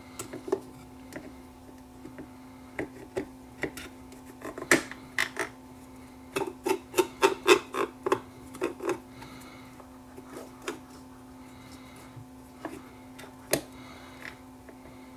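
Plastic gear of a Technics SL5200 turntable's auto-return mechanism being worked into place by hand on its metal chassis: scattered clicks and knocks, with a quick run of clicks in the middle.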